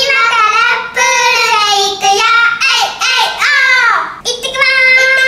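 A child singing loudly in a high voice, in long held and sliding notes with short breaks; the last note is held level for about a second near the end.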